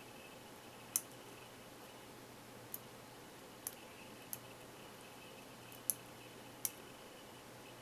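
A Sparrows hook pick and tension wrench working the pins of a Phillips padlock: about six sharp, irregular metal clicks as the pick lifts and releases the pins.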